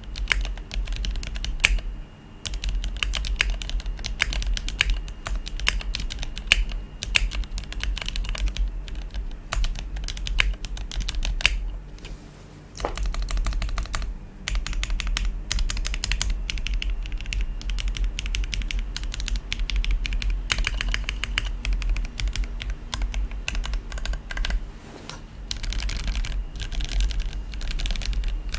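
Typing on a Tofu60 custom mechanical keyboard with lubed Gateron Pro Milky Yellow linear switches, a polycarbonate plate, Krytox-lubed Cherry screw-in stabilizers and cherry-profile keycaps: a dense, continuous stream of key clacks broken by a few short pauses.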